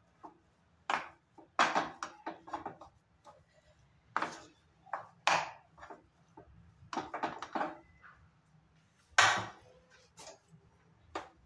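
Spatula scraping and knocking against a non-stick frying pan in short, irregular strokes as a cooked potato mixture is stirred and spread, with one louder knock late on.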